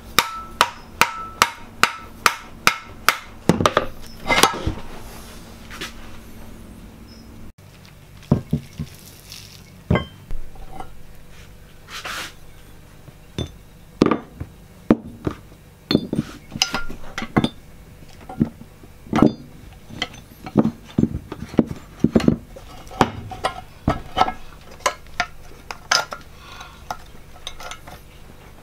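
Sharp metal knocks and clinks from parts being handled and fitted on the underside of a heavy cast-iron engineer's vice. A quick, even run of ringing taps, about three a second, fills the first three and a half seconds, then single knocks follow at irregular intervals.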